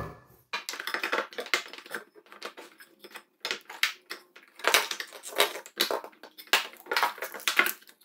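Hair dryer power cord being wound around a wall-mounted hair dryer holder: irregular rustling, scraping and light clicking as the cable is handled against the holder.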